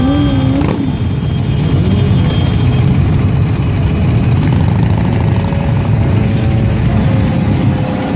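A crowd of motorcycles idling together at a standstill, a loud, steady low rumble, with the Ural sidecar outfit's flat-twin engine closest.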